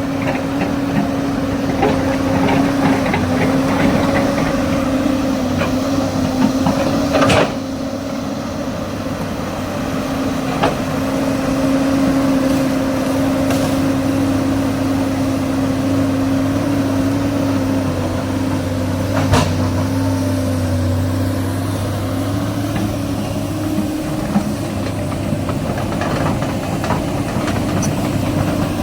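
SANY excavator's diesel engine running steadily, its pitch dipping and rising slightly, with a rattly stretch at first and two sharp knocks, about seven seconds in and again about two-thirds through.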